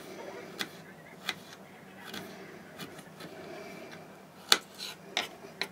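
Kitchen knife cutting carrots into julienne on a wooden cutting board: about eight irregular sharp taps of the blade on the board, the loudest about four and a half seconds in.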